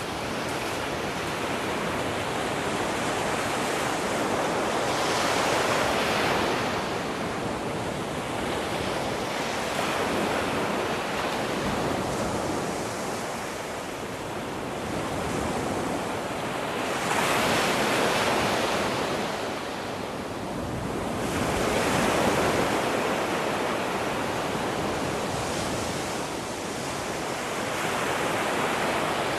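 North Sea surf breaking on a sandy beach, a steady wash of waves that swells and eases every few seconds as each breaker comes in.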